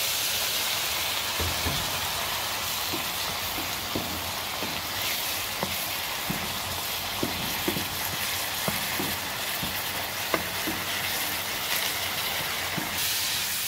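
Riced cauliflower sizzling and steaming in a hot nonstick frying pan with a little water just added, while a wooden spoon stirs it, scraping and knocking against the pan in scattered short clicks.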